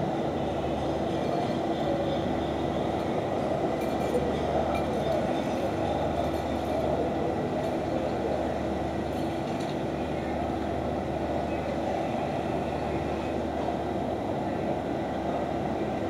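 Steady city background hum, a continuous even noise with a few faint steady tones running through it.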